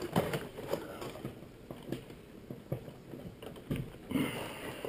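A few irregular soft taps and clicks: fingers pressing the buttons of a microwave's new membrane keypad, with no beeps heard.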